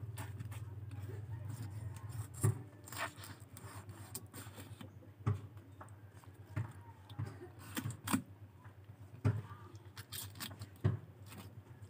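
A small kitchen knife cutting and scraping a small fish over a plate, with scattered sharp clicks of the blade against the fish and plate. A low steady hum stops about two seconds in.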